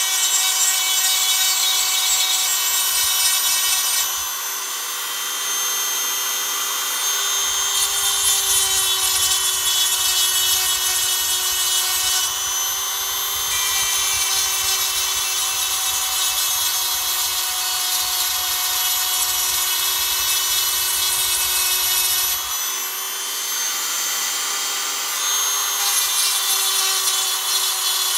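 Small high-speed power tool running steadily with a high whine, grinding away the plastic antenna part. The grinding hiss eases off for a few seconds several times, then returns.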